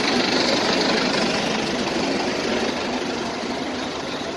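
A tractor's diesel engine idling close by, a steady running noise that eases slightly toward the end.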